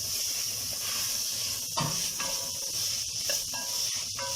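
Minced chicken, onion, mushroom and freshly added capsicum sizzling in a frying pan, a steady hiss with a single knock about two seconds in.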